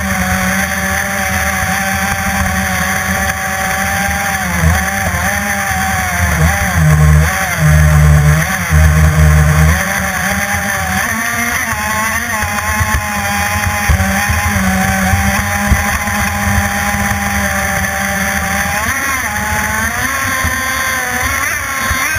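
CMB91RS two-stroke nitro-methanol model boat engine running flat out, a high-revving whine whose pitch dips and recovers several times. There are louder low rumbling bursts between about seven and ten seconds in, where the note wavers.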